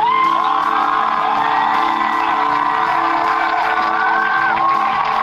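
Background music: a melody of long held notes that slide from one pitch to the next, over a steady low drone.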